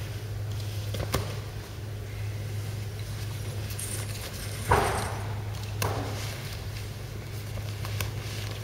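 Sports hall room tone with a steady low hum, scattered light knocks and rustles of grappling on the mats, and a sharper slap-like impact about five seconds in, followed by a smaller one a second later.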